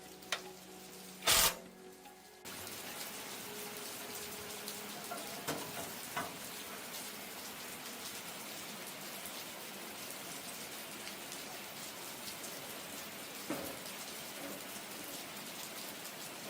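A steady, even hiss with a few small ticks in it starts abruptly about two and a half seconds in, after faint steady tones and one sharp knock.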